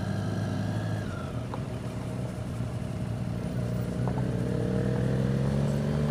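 Triumph Street Triple R's inline-three engine running while ridden on a gravel road. Its revs ease off about a second in, then climb steadily from about four seconds in as it accelerates.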